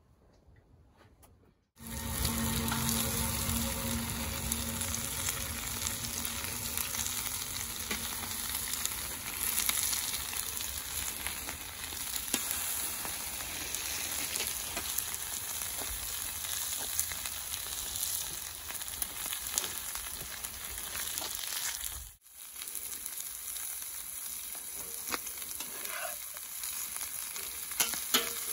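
Pork neck steaks and potatoes in a cast-iron pan sizzling steadily on a very hot wood-fired steel fire plate, starting about two seconds in, with a brief break about three quarters of the way through. A few scrapes and clicks of a metal spatula on the plate near the end.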